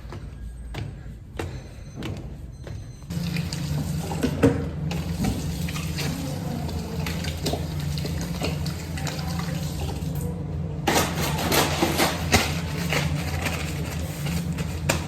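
Water running steadily, starting about three seconds in after a few light knocks.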